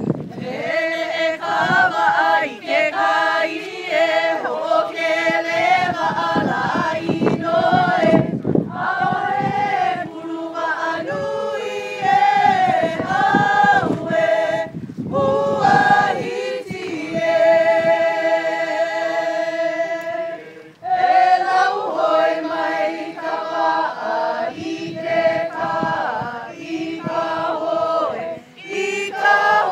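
A group of voices singing or chanting together in unison without instruments, with long held notes and short pauses for breath.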